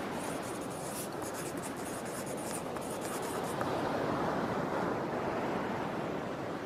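Pen scratching on paper, heard for about the first three and a half seconds, over a steady rush of ocean surf.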